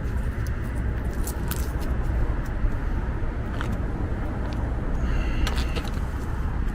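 Scattered light clicks and small rattles of e-bike controller parts and wiring being handled, several close together near the end, over a steady low rumble.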